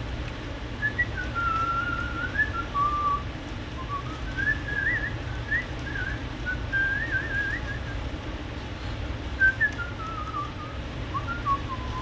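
A person whistling a wandering tune in three phrases with short pauses, over a steady low background hum.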